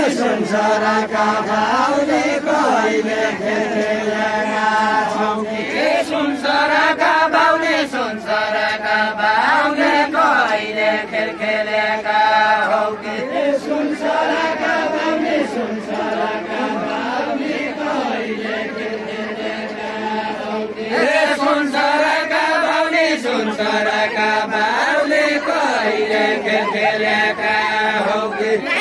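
A group of voices singing a Deuda, the far-western Nepali folk song, together in a chant-like melody. The drawn-out lines rise and fall, each phrase lasting about two seconds.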